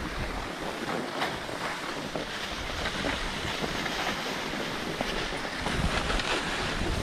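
Skis sliding and scraping over snow, giving a steady hiss, with wind rumbling on the microphone that grows stronger near the end.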